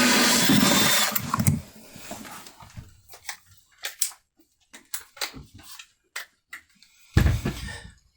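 An electric drill driving a 1¼-inch hole saw runs loudly and stops about a second in. Scattered clicks and knocks follow, with a louder thump near the end.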